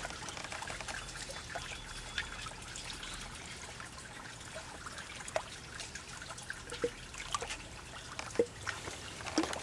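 Water trickling and dripping, with scattered small splashes, as a stream invertebrate sample is swirled and rinsed by hand in a sieve of creek water.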